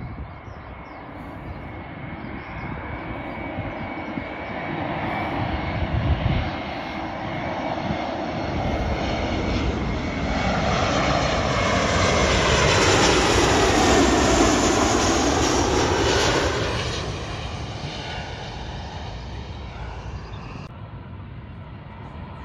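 Jet airliner on landing approach flying overhead: its engine noise builds to its loudest a little past the middle, with the pitch bending downward as it passes, then fades away.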